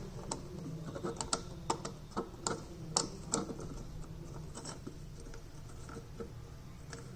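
Small irregular clicks and taps as a screw is handled and fitted into a 3D-printed plastic phone holder. They come thick in the first three and a half seconds and only now and then after that.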